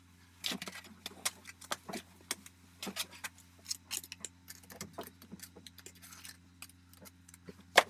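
Irregular sharp clicks and light knocks of uneven loudness, a louder one near the end, over a faint steady low hum.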